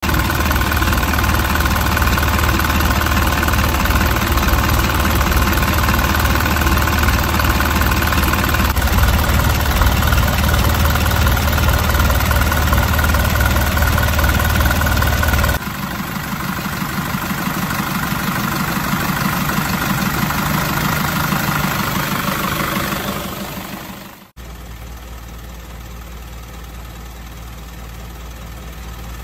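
A truck's common-rail diesel engine idling steadily. The engine is down on power, and a new fuel filter has not cured it. The sound changes about halfway through, then cuts out briefly near the end and comes back quieter.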